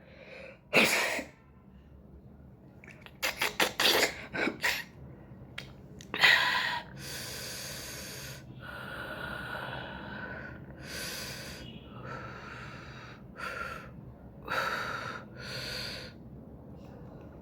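A person's breath and nose sounds while the nose is tickled with cotton swabs to bring on a sneeze: a sharp burst, then a quick run of short gasping intakes of breath. About six seconds in comes a louder sneeze, followed by long, noisy, heavy breaths.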